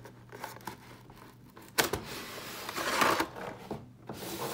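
Toy packaging being handled: a clear plastic tray sliding out of its cardboard box, with a sharp scrape about two seconds in and a rustling, crinkling swell soon after.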